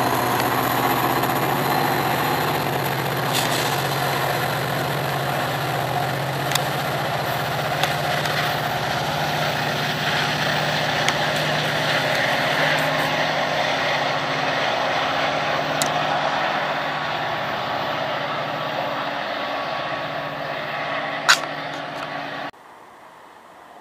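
Metra F40PH diesel locomotive engine running at a steady speed, a constant low hum under a noisy rush. There is one sharp click near the end, and then the sound cuts off abruptly.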